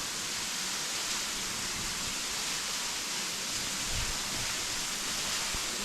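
Henrhyd Falls, a 27 m waterfall at low summer flow, giving a steady hiss of falling and splashing water, heard from behind and under the fall.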